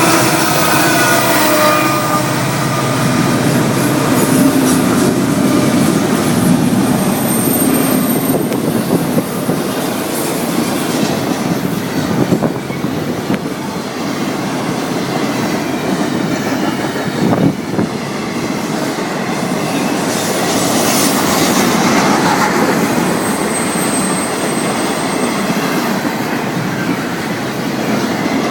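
Florida East Coast Railway freight train rolling past, a steady rumble and rattle of cars on the rails. A horn's last note fades away at the start, and wheels squeal briefly twice, about 8 and 24 seconds in.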